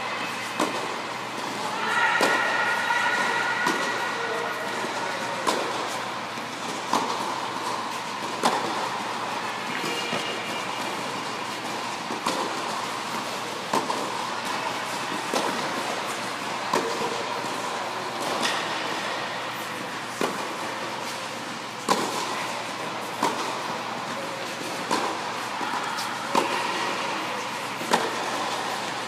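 Tennis rally on an indoor hard court: sharp pops of the ball off the strings and bounces on the court every second or two, over a steady background rush.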